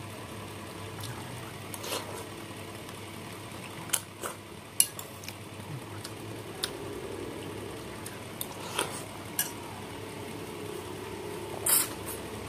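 Metal spoon clinking now and then against a glass bowl of soup, with quieter eating sounds between the clinks. Near the end there is a louder slurp as the soup is drunk from the bowl's rim.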